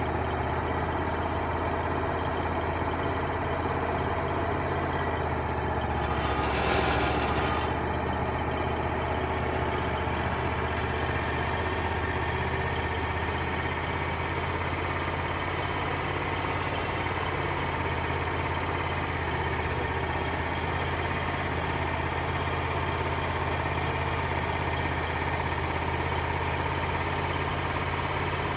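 Wood-Mizer LT35HD sawmill's engine running steadily under the band saw, with a brief hissing rush about six seconds in.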